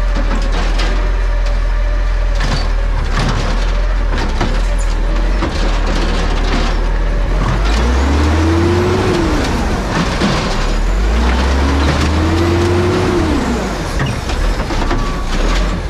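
Garbage truck's diesel engine running, revving up twice from about halfway through to drive the hydraulics of the automated side-loader arm as it reaches for a recycling cart; each rev rises and falls in pitch. Metal knocks and clanks from the arm and truck are scattered throughout.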